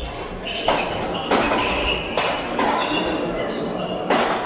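Badminton rally: a string of sharp racket strikes on the shuttlecock, roughly a second apart, echoing in a large sports hall, with short high squeaks between them, typical of court shoes on the hall floor.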